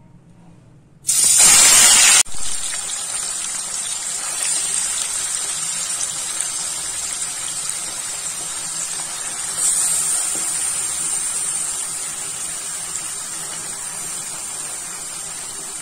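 Raw Bombay duck fish dropped into hot mustard oil in a wok: a loud burst of sizzling about a second in as the fish hits the oil, then steady frying sizzle that swells briefly around ten seconds in and eases off near the end.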